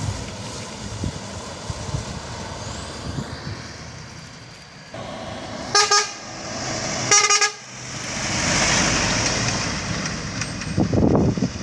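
Dump truck sounding two short horn blasts about a second apart as it approaches, then its engine and tyres swelling into a rush of noise as it drives past.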